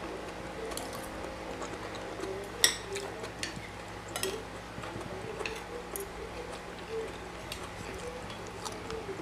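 Metal fork and spoon clinking and scraping on a ceramic plate during a meal, with a sharp clink about three seconds in and lighter clicks scattered after it.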